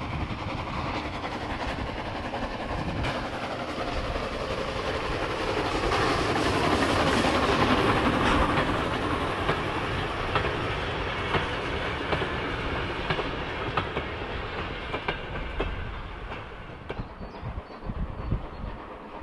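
A train passing close by: the Cockerill 2, a 1926 vertical-boiler steam locomotive, with its vintage passenger carriages, wheels clicking over the rail joints. It builds to its loudest about eight seconds in, then fades away.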